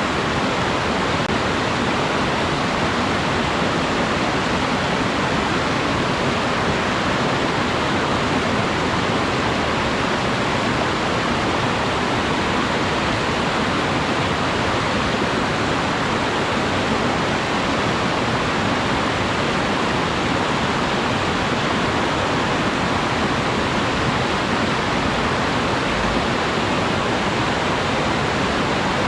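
Waterfall: a loud, steady, unbroken rush of falling water that stays even throughout.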